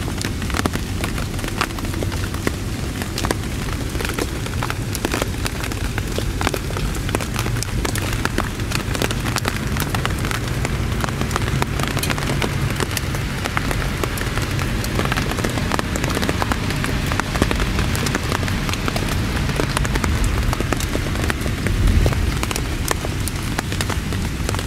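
Heavy rain falling steadily, with many close drops striking and a low rumble underneath.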